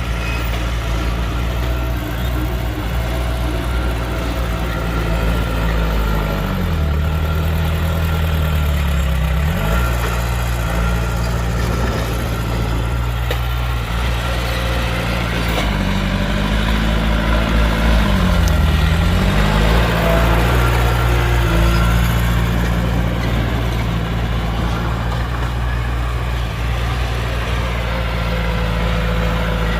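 Heavy diesel engines of earthmoving machinery running, with engine speed dipping and recovering twice, about a quarter and two thirds of the way through.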